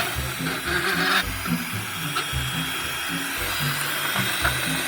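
Power drill running steadily as it cranks a camper trailer's jacks down, with background music and a steady beat underneath.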